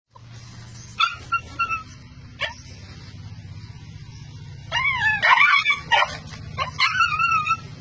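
Dog yelping and whimpering under a rooster's attack: a few short yelps about a second in, then a longer, louder run of high yelps and whines in the second half.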